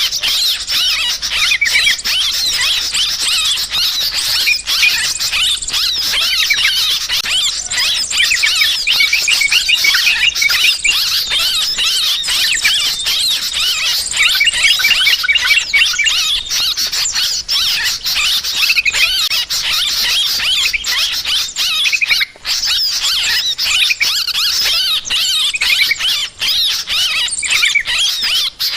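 Yellow-vented bulbuls chattering noisily in a dense, unbroken chorus of rapid chirps and warbles, mixed with the calls of other small birds, as used in a bird-trapping lure recording.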